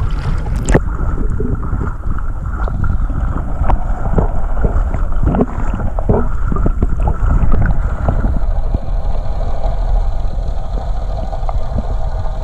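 Muffled underwater rumble and sloshing from a camera held under the water beside a boat, with a splash as it goes under less than a second in and scattered knocks. A faint steady hum comes in during the second half.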